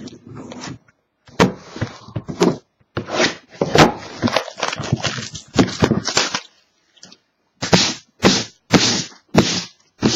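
Sealed trading-card box being opened: plastic shrink wrap torn off and cardboard flaps and packaging handled, in a string of sharp crackling, ripping bursts with short pauses between them.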